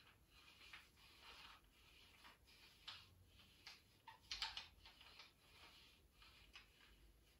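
Faint, repeated rubbing and brushing strokes of hands massaging a child, with a louder brushing stroke about four and a half seconds in.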